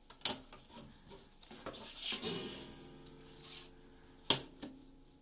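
A steel ruler is handled on a cutting mat: a sharp click, a scraping slide with a short ringing tone, then another sharp click, the loudest, about four seconds in, and a smaller one just after.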